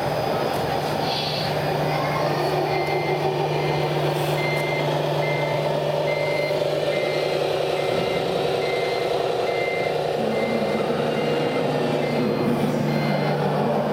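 Sound module of a radio-controlled Wedico CAT 966G wheel loader playing a diesel engine sound with a reversing beeper. The high beep repeats about twice a second and stops near the end.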